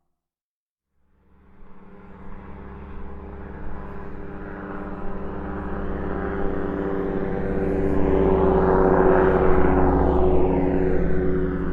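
An airplane flying over: after about a second of silence its engine sound fades in, grows steadily louder to a peak about nine seconds in, and begins to fade near the end.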